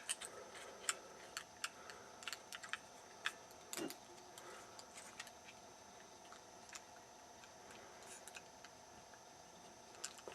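Faint, irregular light clicks and scrapes of a thin aluminium beer-can shim being worked down into a combination padlock beside its shackle. The clicks come thickly in the first few seconds and thin out later.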